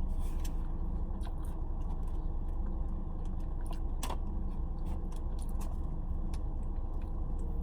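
Steady low hum of a car's running engine, with scattered small clicks and crunches of someone eating fries, one sharper click about four seconds in.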